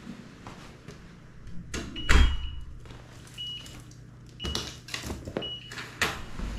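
A door thuds shut about two seconds in, followed by several short high beeps at one pitch. A few lighter knocks and scuffs follow as a handbag is set on a wooden floor and sneakers are pulled off, over a steady low hum.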